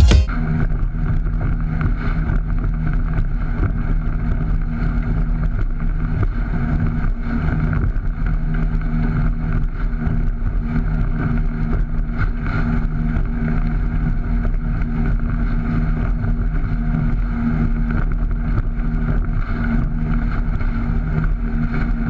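An engine running steadily at one constant pitch, a low drone that does not change.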